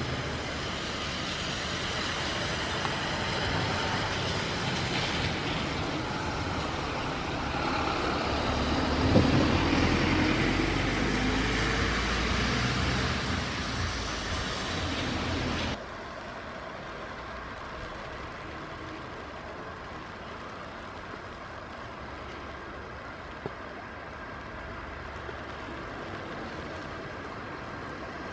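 Steady jet airliner noise from an Embraer 195-E2 on the apron, swelling over the first ten seconds or so. About halfway through it drops abruptly to a quieter steady rumble and hiss.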